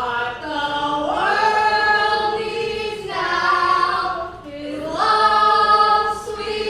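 Voices singing together in a choir-like chorus, holding long notes in several phrases with short breaks between them.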